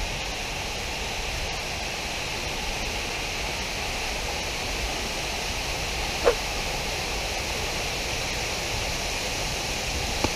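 Steady rush of a large waterfall's falling water. About six seconds in, a single brief call falls in pitch.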